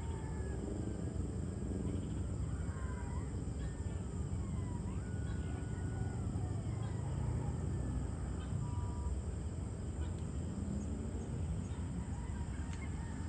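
Open-air evening ambience: a steady low rumble like distant traffic, with a steady high hiss over it and faint thin whistled calls that glide up and down or hold one note, scattered through the middle.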